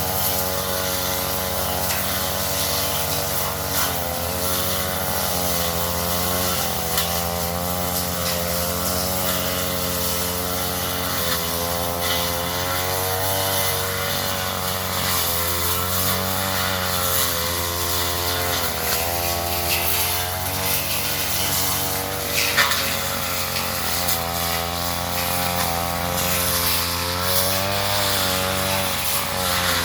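Petrol brush cutter running at working speed, its engine note wavering up and down as the blade cuts through undergrowth, with one sharp click about two thirds of the way through.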